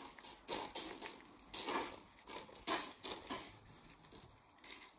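Hand-held water pistols squirting thinned paint onto paper sheets: a series of short, irregular spraying spurts.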